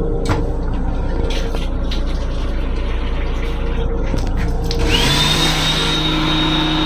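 A small motor in the railcar restroom's sink unit spins up about five seconds in to a steady high whine over a hissing rush of air and water as the faucet runs. Before it there is only a low hum with a few light knocks.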